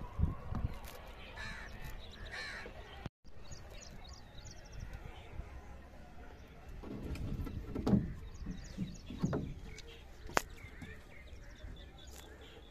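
Crows cawing a few times, with some low thumps and a single sharp click about ten seconds in.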